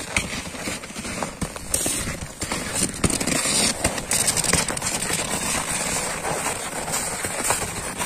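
A horse's hooves crunching and breaking through hard, crusted snow as it walks, an uneven run of crunches and knocks.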